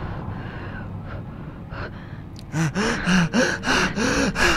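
A person gasping in short, rapid voiced breaths, about three a second, each rising and falling in pitch. The gasps start about halfway in, after a quiet low hum.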